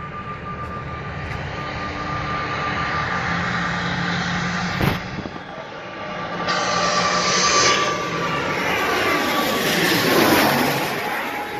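Jet airliner flying low overhead on approach: the engines' rushing noise with a high steady whine grows louder and peaks as it passes about ten seconds in, then the whine drops in pitch as it goes by. A brief sharp knock is heard about five seconds in.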